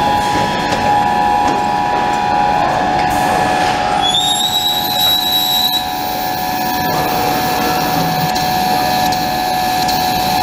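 Trumpf TruMatic CNC punch press running: a steady mechanical hum with held tones. About four seconds in a high whine rises and holds for under two seconds as the axis drives move the table, and a few light clicks follow.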